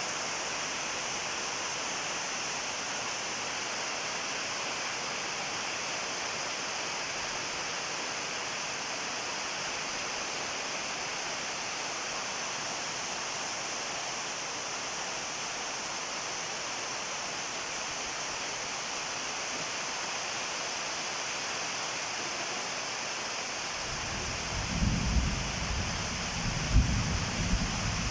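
Steady hiss of heavy rain falling. Near the end, a low rumble with a few sharp thumps comes in over it.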